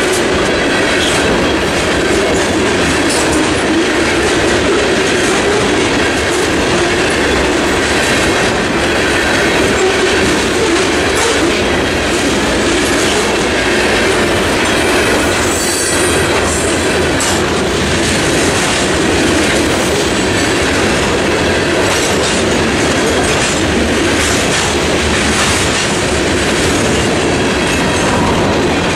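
Freight cars of a CSX mixed freight train, open hoppers and then covered hoppers, rolling past at a steady pace: a loud continuous rumble of steel wheels on rail with scattered clacks.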